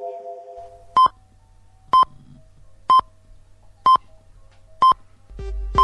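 Russian radio time signal: five short, identical high beeps about a second apart, with the sixth, longer pip beginning at the very end, marking the top of the hour. A low music beat comes in just before the last pip.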